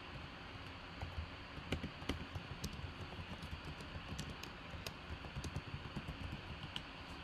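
Computer keyboard typing: irregular light key clicks over a steady low hiss.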